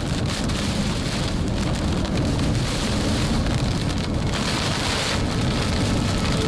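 Heavy rain drumming on a moving car's roof and windshield, over the steady rumble of tyres on a wet highway, briefly heavier about four and a half seconds in.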